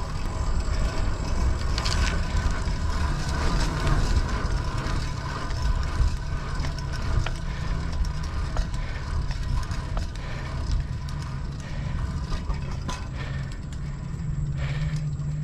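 Wind buffeting the microphone, heaviest at the low end and rising and falling a little, with tyre and road noise from a fixed-gear bicycle riding on pavement.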